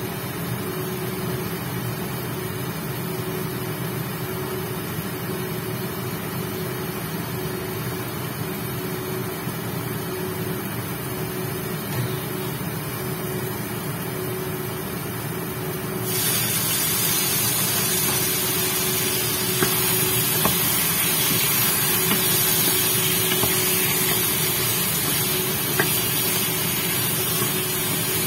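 Chicken pieces sizzling in a covered wok on an induction cooktop, over a steady hum that fits the cooktop's cooling fan. About two-thirds of the way through, the sizzle turns suddenly louder and hissier, and a few sharp pops follow.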